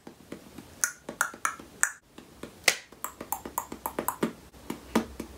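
A woman beatboxing: a quick, uneven string of short mouth clicks, pops and percussive hits, with a short pause about two seconds in.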